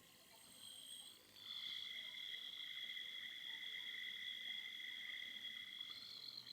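Polished-zirconium fidget spinner whirring on its bearing, a steady high-pitched whine of a couple of constant tones that grows stronger about a second and a half in.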